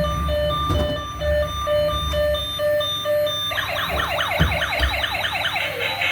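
Electronic toy emergency-vehicle siren: a repeating beep at about two a second, switching about three and a half seconds in to a fast warbling siren. A couple of light knocks are heard partway through.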